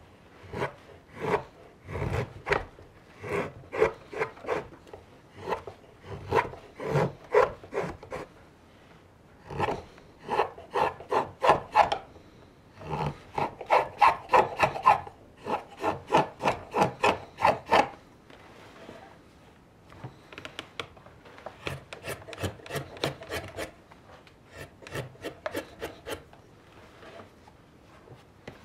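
A knife blade shaving raw, green birch in repeated short scraping strokes, two to three a second, in runs with short pauses between them, as a wooden mug is carved.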